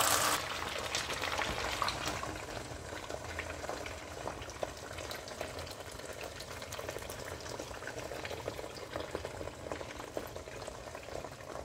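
Whole fish frying in shallow oil in a nonstick pan: the oil sizzles steadily with fine crackles, a little louder for the first half second before settling.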